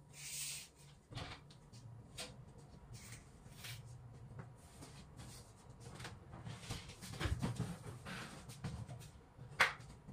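Scattered light knocks, clicks and rustles of things being handled, busier in the second half, with one sharper click near the end.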